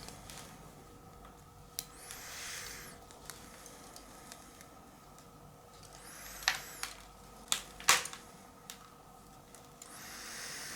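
Pruning scissors snipping through ficus roots several times, with the sharpest snips clustered in the second half, between soft rustling as the roots and soil are handled.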